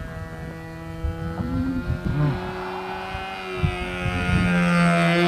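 Evolution .36 two-stroke glow engine of an RC plane in flight, a steady buzzing drone from the engine and its 11x4 propeller, growing louder toward the end as the plane comes nearer. Gusts of wind rumble on the microphone.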